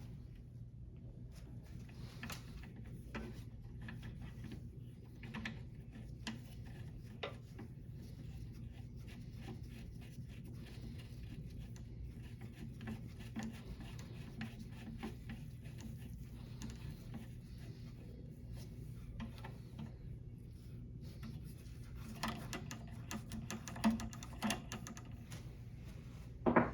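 Faint handling noises of hands working on a small lawnmower engine: scattered light clicks and rubbing of small metal and plastic parts, with a few sharper clicks near the end, over a steady low hum.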